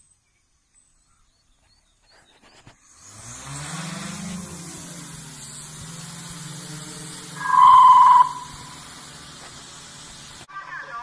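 Hexacopter drone's motors spin up after a near-silent start, rising in pitch over about a second, then settle into a steady propeller hum as the drone lifts off and climbs. A short, loud high beep sounds once, around three-quarters of the way through, and the hum cuts off suddenly near the end.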